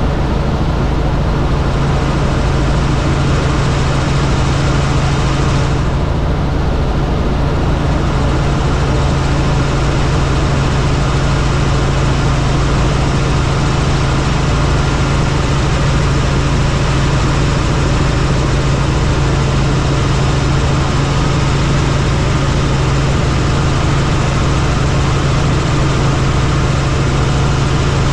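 Helicopter in flight, its engine and rotors running steadily and loudly: a constant low hum under an even rushing noise.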